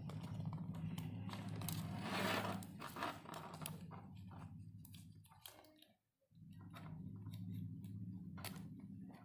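A steady low hum with scattered clicks and scraping from handling, a louder scrape about two seconds in; the hum cuts out briefly about six seconds in.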